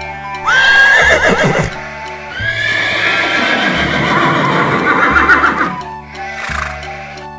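Horse whinnying twice, a short neigh and then a longer, wavering one, over background children's music with a steady beat.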